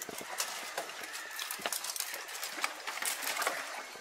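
Dry branches and twigs rustling and cracking as they are pushed aside, with irregular sharp snaps over a soft hiss.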